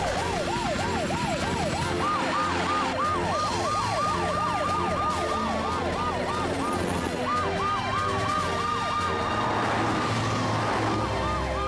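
Sirens of several cartoon rescue vehicles sounding together: fast rising-and-falling sweeps, about two or three a second, overlapping, with a slower long wail joining in among them, the sign of an emergency call-out.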